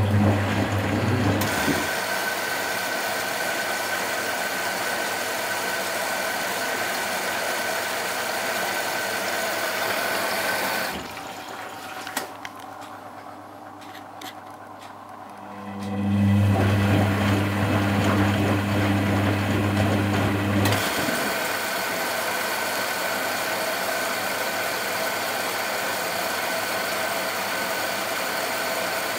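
Constructa Contura washing machine taking in water: a steady rush of water flowing in, in two long spells, each starting with a low hum. Between the spells the rush stops for a few seconds and a few light knocks are heard.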